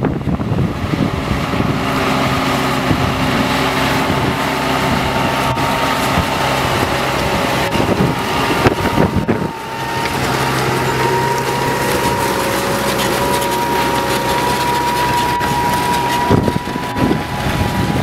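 Case IH Puma 230 CVX tractor's six-cylinder diesel engine running steadily under load while pulling a five-furrow reversible plough through the soil. A thin high whine climbs slowly in pitch through the second half.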